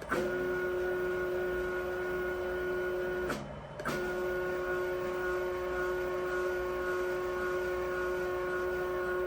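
Stepper motors on a CNC-converted RF-30 mill-drill whining at a steady pitch as an axis moves. They stop for about half a second a little over three seconds in, then run again. The owner takes the sound as a sign the motors need more tuning.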